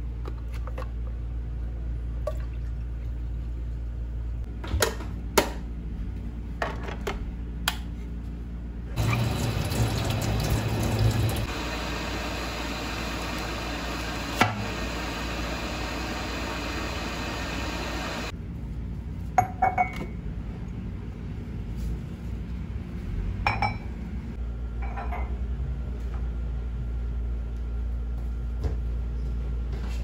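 Kitchen tap running water for about nine seconds in the middle, with scattered clicks and knocks from kitchen items being handled before and after.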